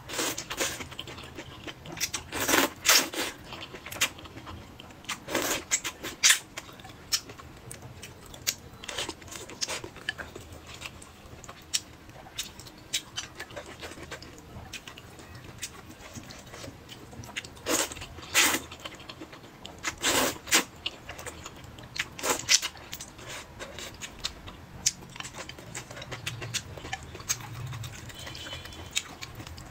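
A person eating soup noodles: several loud slurps of noodles drawn into the mouth, with wet chewing and small mouth clicks between them.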